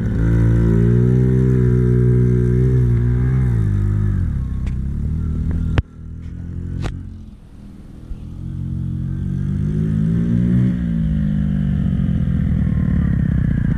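Small 50cc pit bike engine revving, its pitch rising and falling, until a sharp bang about six seconds in, when the engine sound drops away. A couple of seconds later an engine rises again and runs steadily.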